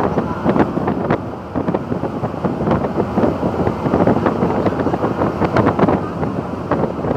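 Wind buffeting the phone's microphone, loud and gusty with an uneven flutter, over a steady low rumble from the ferry.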